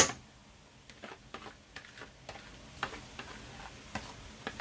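Light, irregular taps and clicks of a spoon knocking and scraping boiled rice out of a plastic colander into a metal pot, with one sharper knock right at the start.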